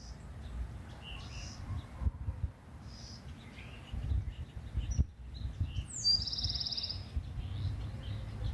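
Wild birds chirping with short, scattered calls, and one bird giving a fast buzzy trill about six seconds in; a low rumble runs underneath.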